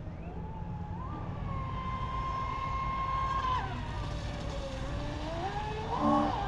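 Pro Boat Sonicwake V2 RC boat's brushless motor whining as the boat runs across the water. Its pitch climbs about a second in, holds, drops, then climbs again near the end, when the sound swells as the boat throws spray in a turn.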